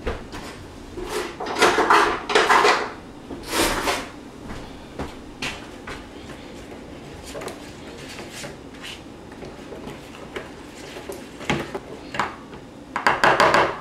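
Wire whisk clicking and scraping against a plastic mixing bowl while stirring a mustard mixture, in uneven bursts that are loudest about two seconds in and again near the end.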